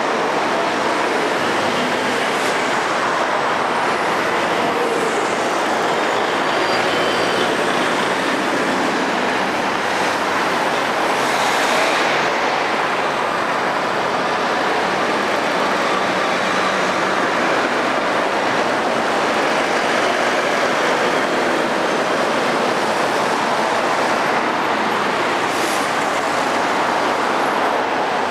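Steady road traffic: cars, vans and articulated lorries driving past one after another, engines and tyres running, with a slightly louder pass a little before halfway through.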